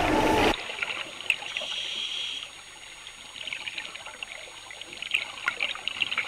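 Scuba regulator exhaust bubbles heard underwater: bubbling and crackling in bursts a second or two long as the diver breathes out.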